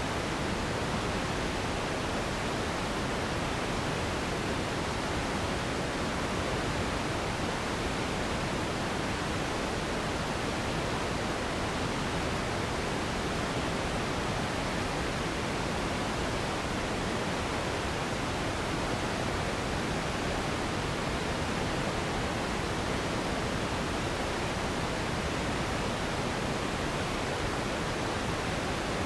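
Steady synthetic relaxation noise for sleep: a constant, even hiss across low and high pitches, unchanging, with no tones or rhythm.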